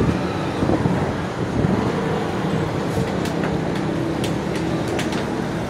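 Steady low mechanical hum, with a few faint clicks in the second half.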